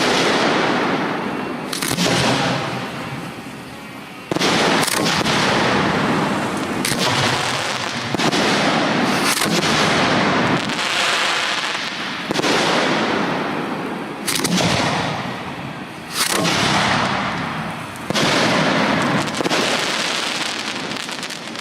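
Display firework shells bursting in a series: about ten sharp bangs, spaced one to three seconds apart, each followed by a long fading rushing tail.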